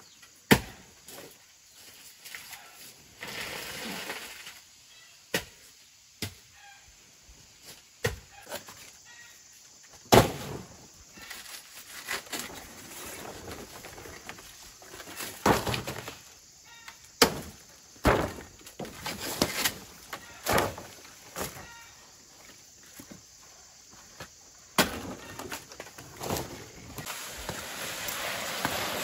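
Sharp cracks and knocks with rustling of large banana leaves as they are cut from the plant and handled, the rustling growing near the end as the leaves are carried. Faint bird calls in the background.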